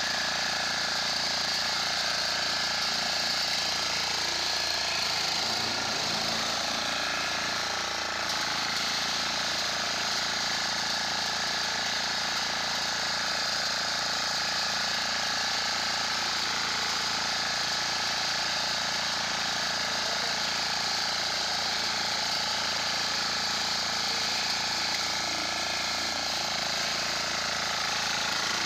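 Small engine of a walk-behind power reaper running steadily at constant speed while its cutter bar mows through standing crop.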